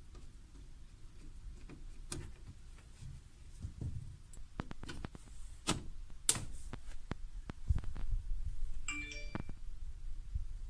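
Scattered sharp clicks and knocks over a low handling rumble, with a short pitched electronic-sounding tone about nine seconds in.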